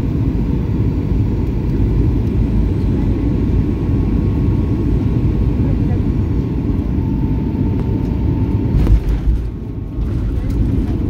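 Airliner cabin noise on landing: a steady low rumble of engines and airflow, with a sudden thump about nine seconds in as the wheels touch the runway.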